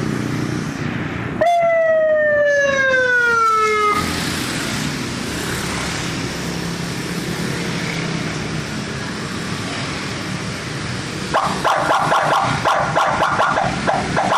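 Electronic vehicle siren (Senken CJB100BD driving a YD 100i speaker): about a second and a half in, a single tone slides steadily down in pitch for about two and a half seconds and stops. After a stretch of steady hiss, the siren comes back about eleven seconds in with a fast, pulsing warble.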